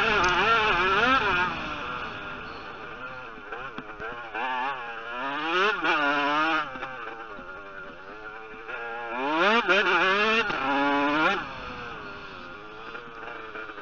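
Motocross bike engine heard close from on board, revving hard and backing off again and again through a lap: loud bursts of throttle near the start, about halfway and again around three-quarters through, with quieter lower-revving stretches between.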